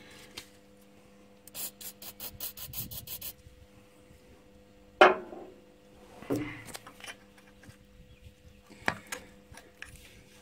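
An aerosol can of penetrating spray being shaken, its mixing ball rattling in about eight quick clicks, roughly five a second, for under two seconds. A few separate knocks and scrapes of metal tools against the engine follow.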